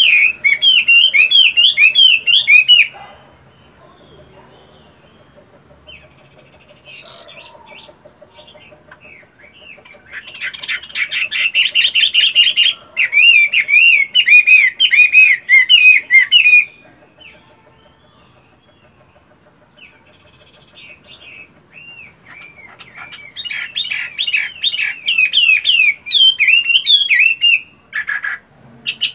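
Caged Chinese hwamei singing loud phrases of rapid, rising-and-falling whistled notes, three phrases of a few seconds each with quiet pauses between them.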